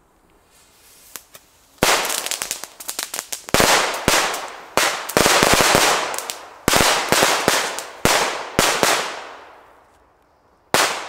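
A homemade mat of silver crackers (small firecrackers) going off after a faint hiss: a rapid, uneven chain of sharp bangs with echoing tails that starts about two seconds in and runs for about seven seconds, then one last bang near the end.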